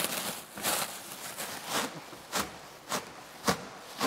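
Clear plastic stretch wrap being pulled off a wheel and bunched up, crinkling continuously with sharp crackles that come about twice a second in the second half.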